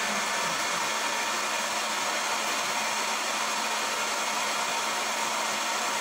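Hair dryer fitted with a diffuser, blowing steadily: an even rush of air over a faint motor hum.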